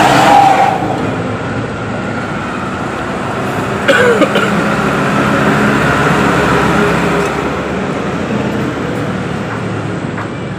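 Steady road traffic noise with the hum of passing engines, and a short sharper sound about four seconds in.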